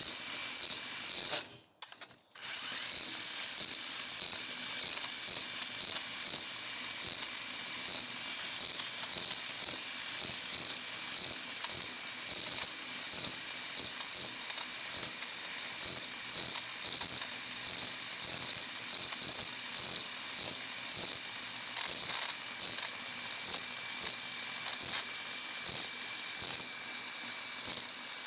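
A cricket chirping steadily, about two short chirps a second, over a faint steady hiss.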